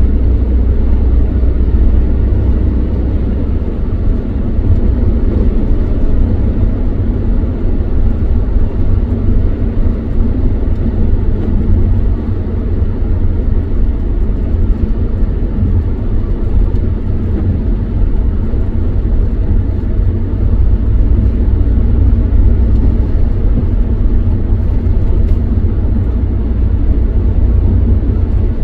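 Steady road noise inside a moving car's cabin: a continuous low rumble of tyres and engine while cruising on a motorway.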